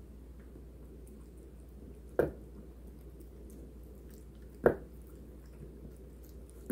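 Bengal cat eating from a stainless steel bowl: quiet chewing and licking, with two sharp, louder wet smacks about two and four and a half seconds in and another at the very end.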